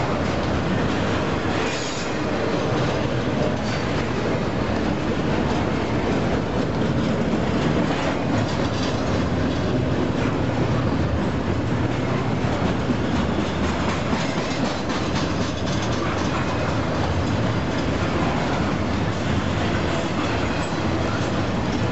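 Double-stack intermodal well cars of a freight train rolling past close by: a steady rumble and clatter of steel wheels on rail.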